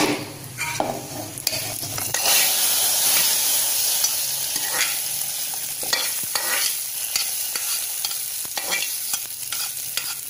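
Hot oil tempering of mustard seeds and curry leaves sizzling as it is tipped into a pot of moong dal and chayote kootu. The sizzle is loudest from about two seconds in and then dies down, while a metal spoon clicks and scrapes the rest of the tempering out of the small pan.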